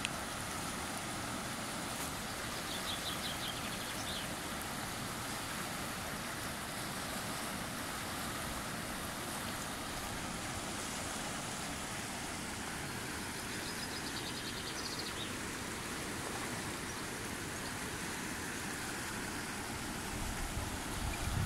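River water rushing steadily over a weir and through the shallow rapids below it, a constant even rush.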